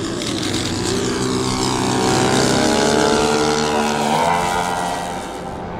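Piston-engined propeller planes, a twin-engine F7F Tigercat with a P-51, flying a low pass. The engine drone swells to a peak about two to three seconds in and then fades, its pitch gliding as the planes go by.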